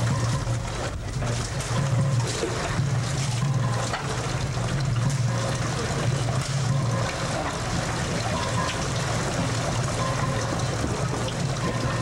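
Strong typhoon wind blowing across the camcorder microphone: a steady rushing noise with a heavy low rumble underneath.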